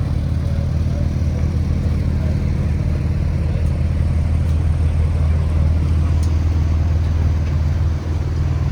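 Sports car engine running at steady revs while cruising, a constant low drone over road and tyre noise.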